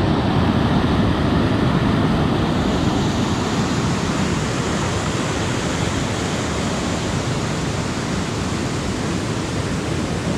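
Creek water rushing down a small rocky cascade into a pool: a loud, steady roar of white water that eases slightly toward the end.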